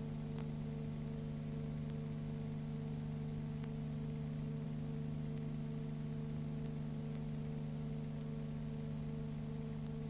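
Steady electrical hum and hiss with a few faint scattered ticks, and no other sound: the empty audio track of a silent cine film transfer.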